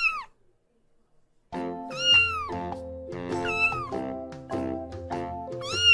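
A cat meows four times, each call rising then falling in pitch. The first is on its own, and the last three come over background music that starts about a second and a half in.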